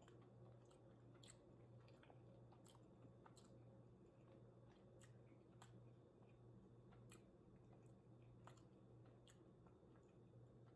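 Faint close-up chewing of food: irregular sharp mouth clicks and small crunches, over a steady low hum.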